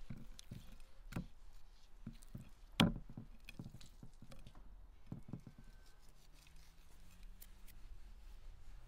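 Salted raw beef liver slices being handled on a ceramic plate: soft wet slaps and taps as the pieces are pressed and turned. One sharper knock comes about three seconds in.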